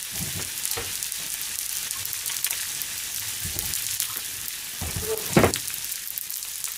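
Fried nodoguro (blackthroat seaperch) with green beans and leeks sizzling in a frying pan after soy sauce and sake have gone in, a steady hiss with small crackles. A single knock about five and a half seconds in.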